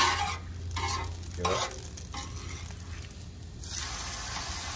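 Brisket flat searing on a hot, oiled Blackstone flat-top griddle, sizzling. The sizzle comes in several short surges as the meat is shifted with tongs, then turns steady and stronger from about three and a half seconds in.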